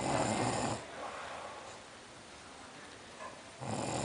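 A person snoring while sleeping off a night of heavy drinking: one loud snore at the start that trails off within about a second and a half, then quiet breathing, and the next snore beginning near the end, about four seconds later.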